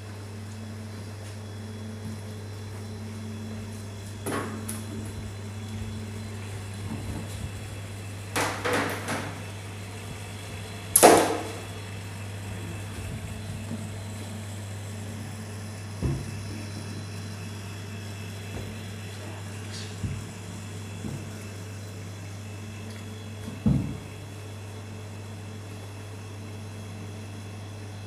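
OSIRIS AO1 portable mortuary refrigeration unit running, its compressor giving a steady low hum. A few scattered knocks break in, the loudest about eleven seconds in.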